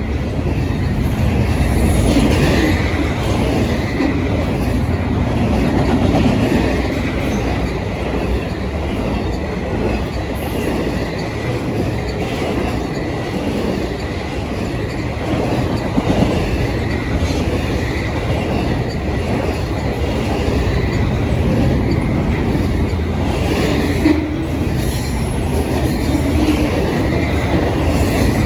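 Norfolk Southern freight train rolling past, a steady rumble of wheels on rail with a faint wheel squeal throughout. Two sharp clacks come about halfway through and again near the end.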